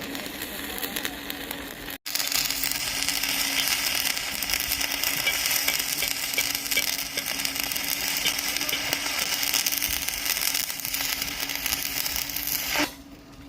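Arc welding: a steady crackle and sizzle from the welding arc, starting about two seconds in and stopping suddenly near the end, over a steady low hum.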